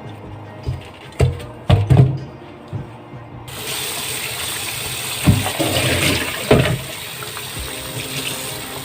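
A few knocks in a kitchen, then about three and a half seconds in a tap is turned on and water runs steadily, with a couple of thumps as it fills a container.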